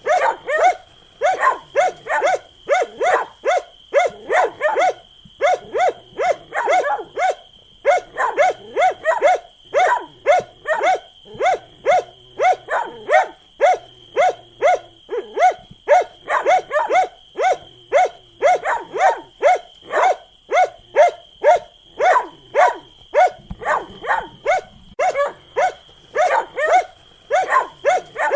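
A dog barking rapidly and repeatedly, about three barks a second, in runs broken by brief pauses.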